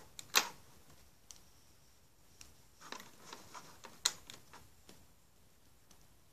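Scattered sharp clicks and taps of a plastic peg loom as rubber bands are pressed down onto its pegs by hand; the loudest clicks come about half a second in and about four seconds in.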